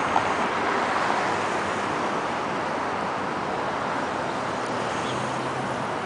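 Steady road traffic noise, an even rush of passing cars.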